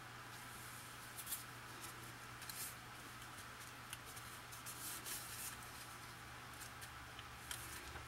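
Faint rustling and light ticks of paper cards being handled and pressed down by hand, a few scattered touches over a steady low hum.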